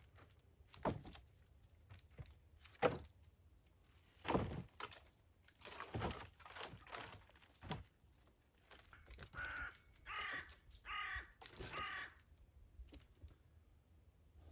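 A crow cawing four times in quick succession near the end, after a few sharp knocks earlier on.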